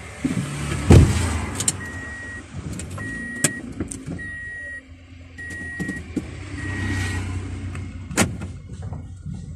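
Inside a car with its engine running: a heavy thump about a second in, then a warning beeper sounding five evenly spaced short beeps, about one a second, with a few sharp clicks among them.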